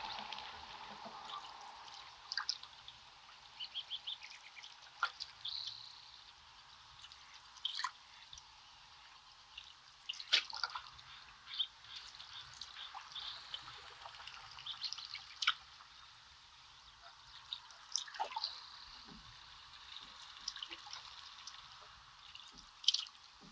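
Canoe paddling on a calm river: water dripping and trickling in irregular small splashes, with scattered short bird chirps and calls.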